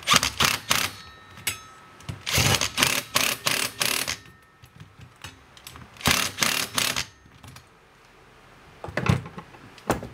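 Rapid clicking in four short bursts, a hand tool tightening the housing bolt on a grinder chainsaw attachment.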